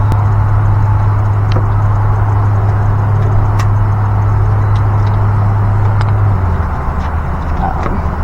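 Steady low mechanical hum, like an engine or motor running, that drops a little in level about six seconds in. A few light clicks sound over it.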